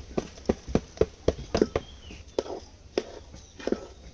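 Metal spoon stirring raw rice in a metal cooking pot: a run of irregular sharp clinks and scrapes of spoon against pot as the rice is turned in the oil and spices to fry.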